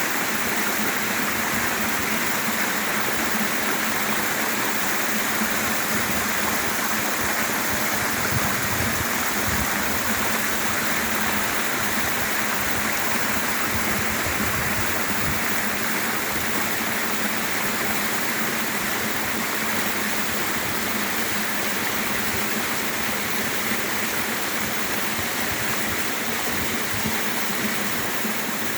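Waterfall pouring and splashing: a steady rushing of water that holds even throughout.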